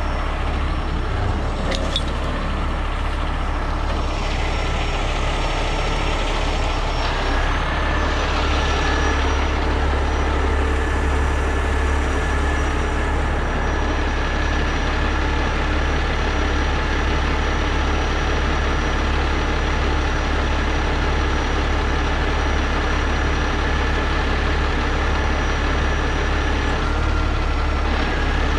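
The diesel engine of a 50-ton Miller Industries Vulcan 950 rotator tow truck running steadily with a deep rumble. A thin, steady high whine joins about seven seconds in.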